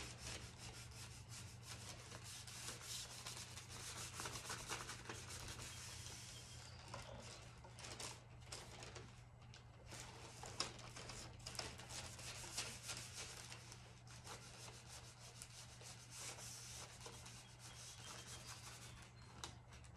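A hand rubbing over clear plastic to smooth decoupage paper down onto a wooden board: soft, irregular swishing strokes with faint crinkling. A low steady hum sits underneath.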